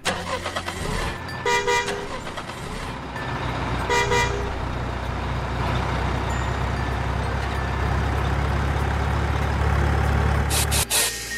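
Truck engine running steadily, with two short horn toots, about one and a half seconds and four seconds in. The engine cuts off suddenly near the end.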